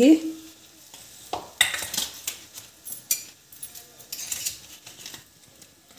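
Scattered light clicks and clinks of kitchen utensils and cookware being handled, with a few sharp knocks spaced irregularly.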